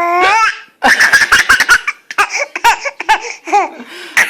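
Baby laughing loudly: a high, held squeal that rises at its end, then rapid runs of short giggles and squeals.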